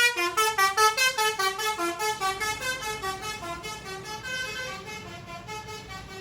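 Tour bus's basuri telolet horn playing a fast melodic run of pitched notes, about five or six a second, growing steadily fainter.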